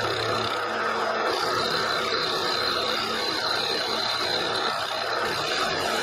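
SIEG X2D mini mill running with its end mill cutting into cast iron, a steady machining sound that does not let up.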